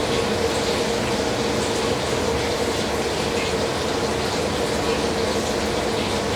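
Steady, unbroken rushing noise with a constant low hum through it.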